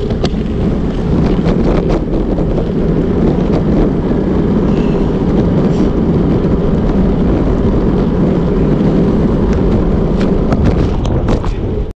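Wind buffeting the microphone of a camera on a moving bicycle: a steady, loud low rumble, with a few faint clicks near the end before it cuts off suddenly.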